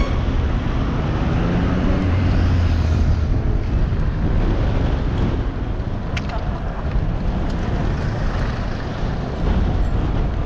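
Wind rushing on the microphone and city traffic noise heard from a moving bicycle, with a steady low vehicle hum about two to three seconds in.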